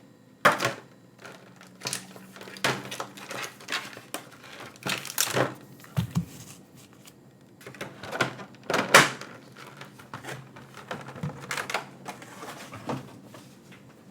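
Cardboard and plastic packaging of a trading-card collection box being handled and taken apart: irregular rustles, light taps and a few sharper knocks.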